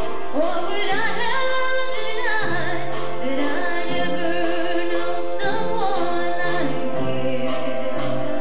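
A young woman sings a solo melody into a handheld microphone over an accompaniment of held chords and a stepping bass line, in a high school choir's live performance.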